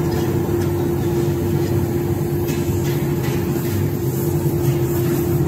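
Oxy-acetylene torch flame running steadily as it heats steel for a weld on a spear head, over a constant steady hum.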